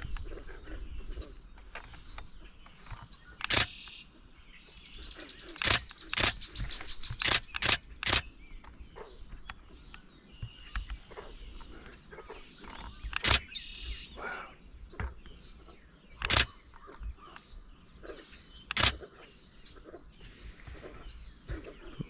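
DSLR camera shutter (Canon Rebel T7i) firing about ten single sharp clicks, spaced irregularly with a quick cluster of several shots a few seconds in. Faint birdsong and a low wind rumble on the microphone run underneath.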